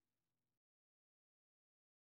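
Silence: a gap in the background music, with only the last faint trace of a fading note in the first half second.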